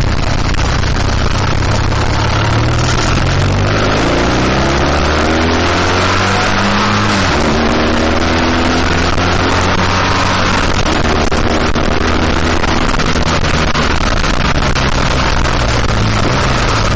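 BMW R1200GS flat-twin engine pulling hard on the move, its pitch rising from about four seconds in, with a gear change a few seconds later. Steady wind rush on the microphone runs under it.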